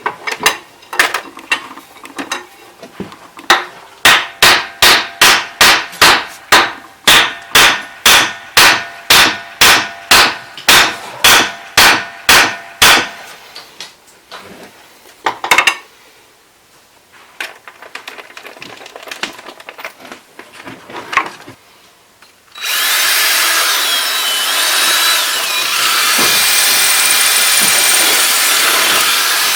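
Repeated hammer blows, about two a second, for roughly thirteen seconds, then a few scattered knocks. Near the end a power tool starts up and runs steadily, its pitch wavering.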